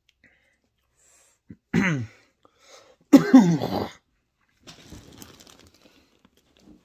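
A man coughing twice, the second cough louder and longer than the first, then faint rustling.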